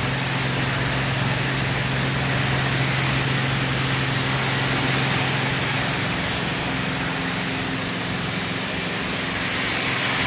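High-pressure car-wash lance spraying a steady jet of rinse water onto a car, a continuous hiss with a constant low hum underneath. This is the final rinse with demineralized water.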